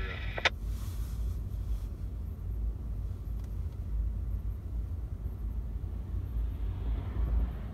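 Low, steady rumble of autorack freight cars rolling past, with a single sharp click about half a second in.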